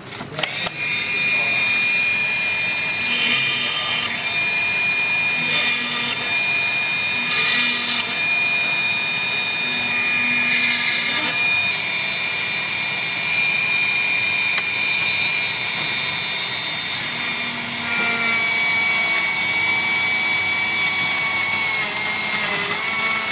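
Homemade hand drill with a 555 DC motor running with a steady high whine, drilling a circuit board with several short hissing bursts as the bit cuts through. About halfway it drills into aluminium, and the whine sags in pitch under the load as the motor draws more current.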